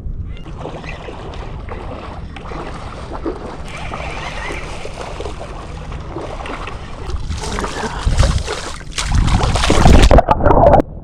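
Water splashing and sloshing in the shallows as a hooked leopard shark is landed, growing much heavier and louder in the last three seconds.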